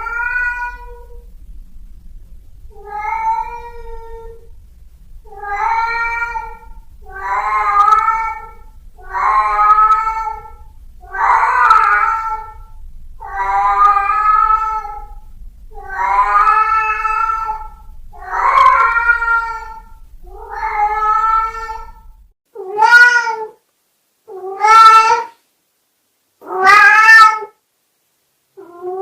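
A domestic cat giving long, sad meows one after another, about one every two seconds. Near the end three louder, shorter meows come against a silent background.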